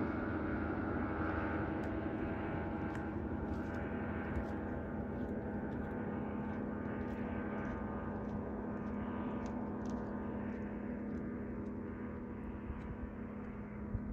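Speedboat's outboard motor running at speed: a steady engine drone that slowly fades as the boat draws away.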